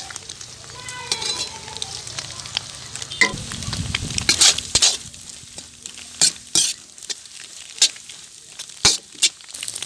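Chopped beans and carrots sizzling as they are stir-fried in oil, with a spatula repeatedly knocking and scraping against the pan.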